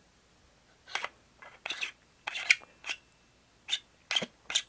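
Aluminium lightsaber hilt sections being twisted and handled: a run of about ten short metal scrapes and clicks at an uneven pace.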